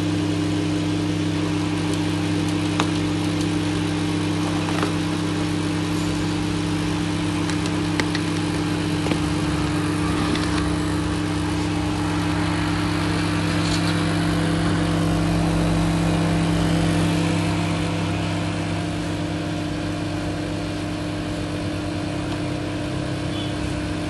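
Microwave oven running a timed heating cycle with its outer cover off: a steady electrical hum from the high-voltage transformer and magnetron, with the cooling fan. It eases a little in the last few seconds.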